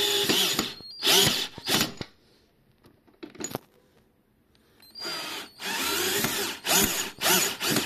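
Power drill driving wood screws through a caster wheel's metal mounting plate into a wooden frame. It runs in several short bursts with pauses, its motor speed rising and falling, ending in a quick run of short pulses as the screws are driven home.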